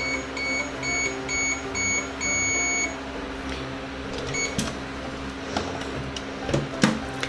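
Toy microwave oven running with a steady hum, then beeping: a row of short beeps about two a second ending in one longer beep, the signal that its cycle is done. Several sharp plastic clicks and knocks follow.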